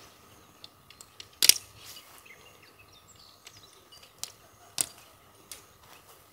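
Sharp clicks and light knocks of a dome tent's clips and poles being fitted during pitching, a handful of separate clicks with the loudest about a second and a half in and another just before five seconds.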